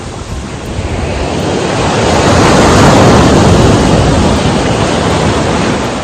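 Ocean surf breaking on a sandy beach, the wash swelling to its loudest about halfway through, with wind buffeting the microphone.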